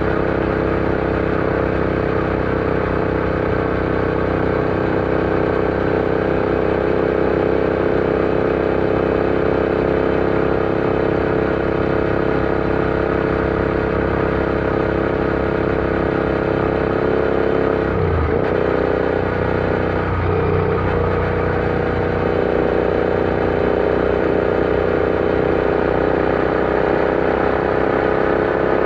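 Royal Enfield Interceptor 650's parallel-twin engine running at a steady cruising note. The pitch dips briefly and recovers twice, a little past the middle.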